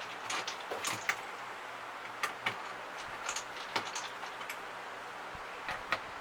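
Scattered light clicks and knocks, about a dozen in six seconds, from hands handling parts while a refrigerator's interior is being reassembled.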